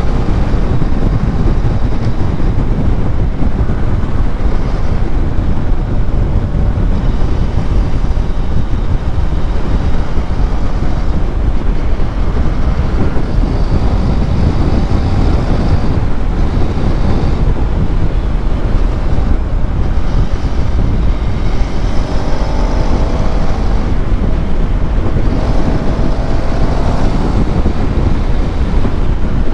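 Motorcycle being ridden at speed: a loud, steady rush of wind buffeting the rider's microphone, with the engine running underneath.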